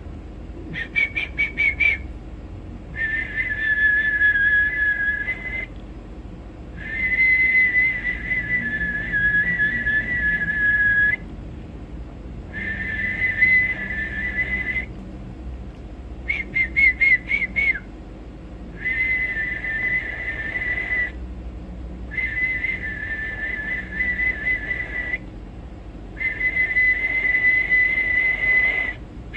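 A man whistling long, steady high notes of two to four seconds each, with short breaks between them. Three times the held notes give way to a quick fluttering trill.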